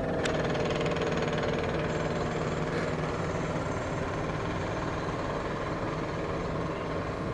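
Steady mechanical hum and rumble of a train, growing slightly fainter, with one sharp click about a quarter of a second in.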